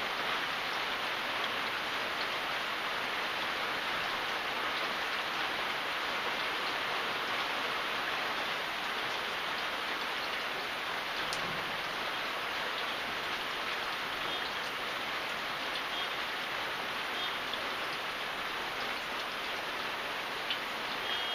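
Steady rainfall, an even hiss of drops on surfaces with a few faint separate drop ticks.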